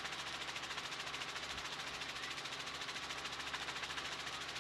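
Helicopter rotor and engine noise: a steady mechanical noise with a fast, even pulse and no break.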